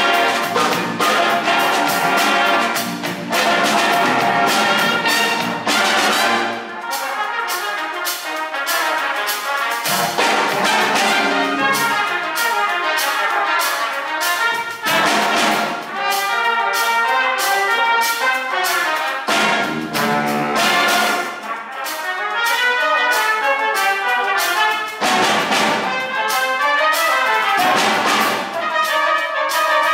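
Big band playing a funk tune live: trumpets, trombones and saxophones sound together in ensemble over a drum kit. The deep bass drops out for a few seconds at a time.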